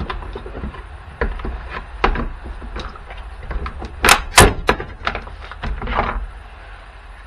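Handling noise from the parts of a dismantled jump starter: scattered knocks and clicks of hard plastic and metal, with two loud sharp clacks close together about four seconds in.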